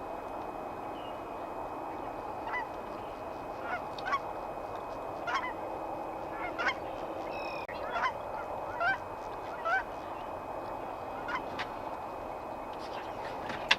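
Geese honking: a dozen or so short honks, one every second or so, over a steady hiss.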